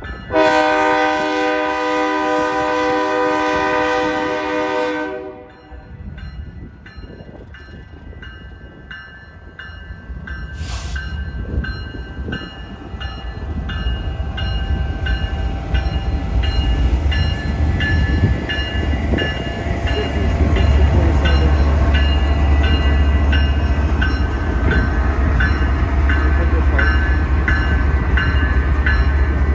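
A freight locomotive's air horn sounds one long blast of about four and a half seconds, a chord of several tones. Then the train's rumble builds as it rolls past, its steel wheels clicking rhythmically over the rail joints.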